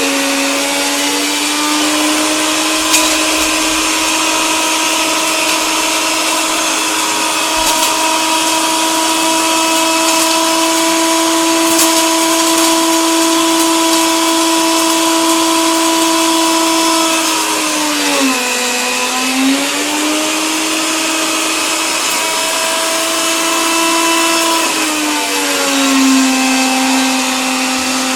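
Electric coffee grinder running steadily: a motor hum under a grinding hiss, with a few small clicks. The motor pitch dips briefly about two-thirds of the way through and recovers, then drops and stays lower near the end.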